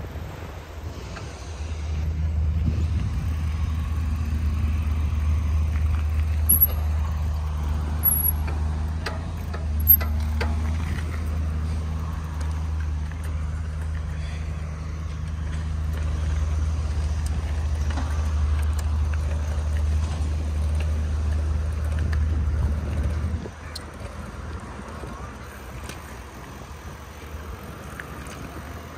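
Steady low rumble of wind on the microphone and knobby mountain-bike tyres rolling on asphalt while riding; it drops off sharply about three-quarters of the way through.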